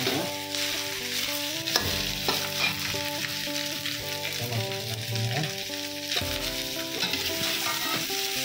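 Metal spatula scraping through and knocking against a stainless steel wok as cooked rice is stir-fried in hot oil, with a steady sizzle underneath.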